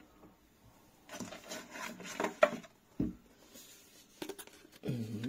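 Hands fetching and handling a plastic precision-screwdriver bit case on a desk: rubbing and rustling, a sharp click about two and a half seconds in, a knock at about three seconds, then a few light clicks and a short low sound near the end.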